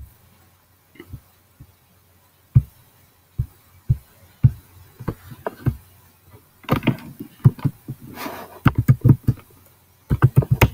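Typing on a computer keyboard, with mouse clicks. There are scattered single clicks and key presses at first, then quick runs of keystrokes in the second half.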